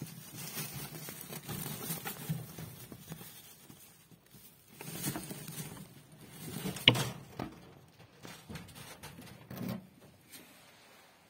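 Dry straw rustling in bursts as a pregnant doe rabbit moves about in her nest box, with one sharp knock about seven seconds in.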